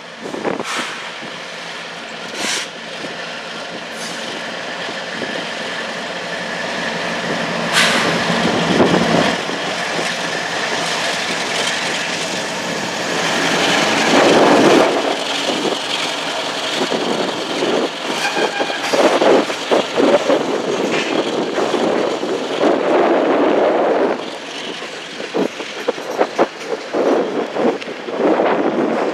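Diesel-electric freight locomotives running as they approach and pass close by. Then empty tank cars roll past, their wheels clattering irregularly over the rail joints.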